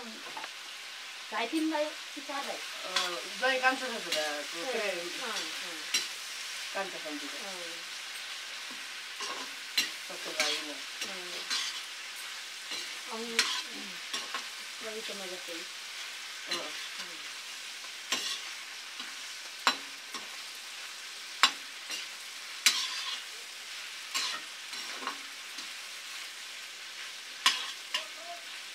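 Chopped mutton frying with a steady sizzle in an iron wok, stirred with a metal ladle that scrapes and knocks against the pan in many sharp clicks, with short squeaky scrapes in the first half.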